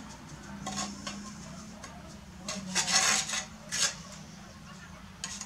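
Steel mason's trowel scraping and clinking against brick and mortar while laying bricks: a few short metallic scrapes, the longest about three seconds in.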